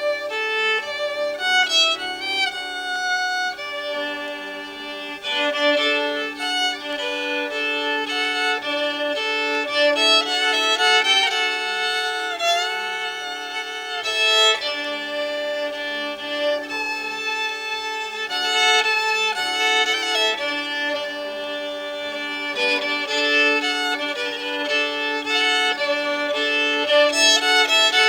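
Violin playing a slow melody of held notes with vibrato, over steady lower sustained tones.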